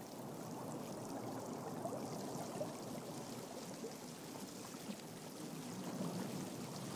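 Soft, steady underwater water ambience: an even, low watery wash with no distinct events.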